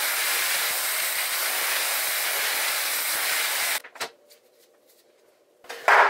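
Zuvi Halo hair dryer blowing with a steady hiss of air, switched off a little under four seconds in.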